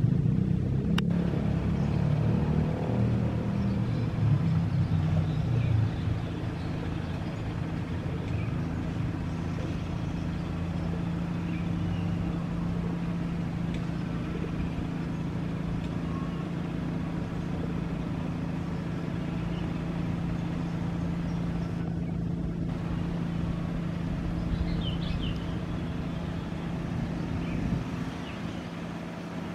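A railcar train approaching slowly, its engine giving a steady low drone. The drone is heavier and more rumbling for the first six seconds, then settles. There is a short click about a second in.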